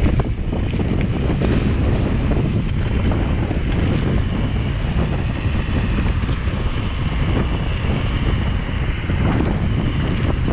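Steady wind buffeting the microphone of a handlebar-mounted camera as a mountain bike rolls along a paved road, a deep, unbroken rumble.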